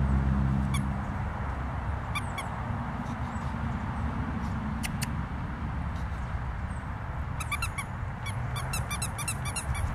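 Squeaky plush toy chicken squeaking in short, high-pitched squeaks as a Great Pyrenees puppy chews and tugs it: a few early on, then a quick run of them near the end, over a steady low background rumble.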